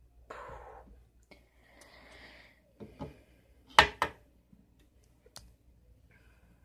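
Plastic Lego bricks of a toy gun clicking and rattling as it is handled. There is soft rustling at first, then a few scattered clicks, with two sharp, loud clicks close together about four seconds in.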